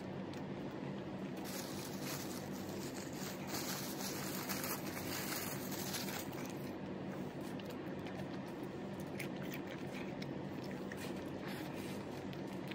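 Quiet sounds of eating biryani by hand: fingers squishing and mixing the rice and meat, small clicks and chewing, over a steady low hum. A hiss comes in about a second and a half in and stops after about five seconds.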